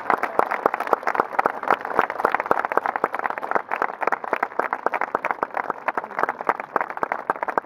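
Large crowd applauding, with dense, continuous clapping that eases a little in the last few seconds.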